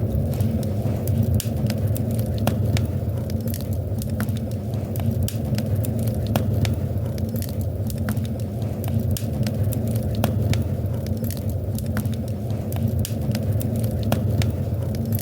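Fire crackling in a fireplace: frequent sharp, irregular pops and snaps over a steady low rumble of the burning.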